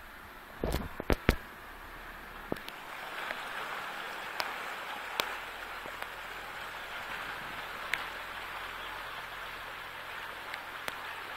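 A few loud knocks about a second in, then a steady hiss of water that grows louder, dotted with scattered small taps of raindrops, heard from inside the cab of a 4x4 wading through floodwater.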